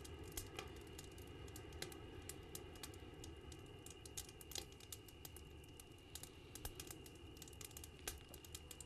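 Near silence: a faint steady background hum with scattered soft clicks and crackles.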